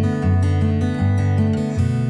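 Background music: plucked and strummed acoustic guitar playing a light melody with a steady pulse.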